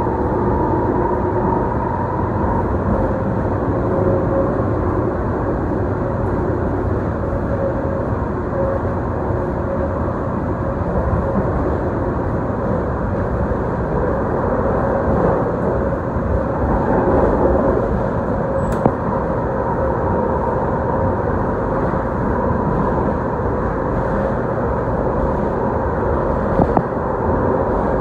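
A Tide light rail car, a Siemens S70, running at speed, heard from inside the car: a steady rumble of wheels on rail with a faint steady whine, and one sharp click about two-thirds of the way through.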